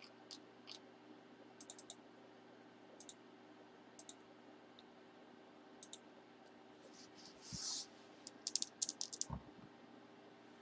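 Faint scattered clicks and light handling noise from small objects being moved near the microphone, with a brief rustle about three quarters of the way in, then a quick run of clicks and a soft thump.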